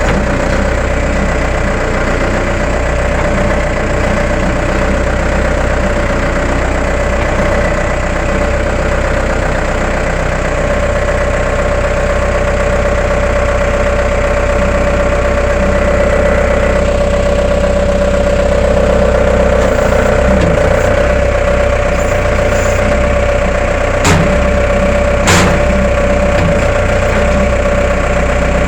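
Case 1845 skid steer's engine running steadily at idle, with two short sharp clicks a little over a second apart near the end.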